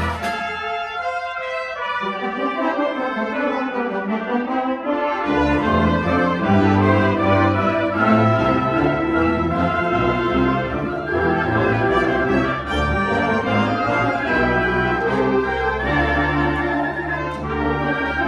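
Youth wind ensemble playing, woodwinds and brass together. The low brass drop out near the start and come back in about five seconds in, giving a fuller sound from there on.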